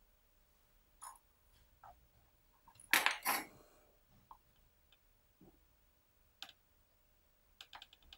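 Small fishing tackle being handled on a wooden desk while a silicone tube is fitted onto a float: scattered light clicks and taps, with a louder clatter of several sharp clicks about three seconds in.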